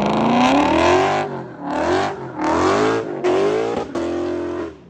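Turbocharged K-series four-cylinder engine in a 1990 Acura NSX revving hard in four rising pulls, with the throttle lifted between them. The sound drops away sharply near the end.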